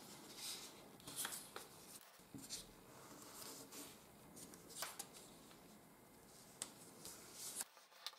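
Faint rustling of a sheet of 80 g office paper as it is folded and creased by hand, with a few soft ticks and scrapes as fingers press along the fold and slide the paper on the tabletop.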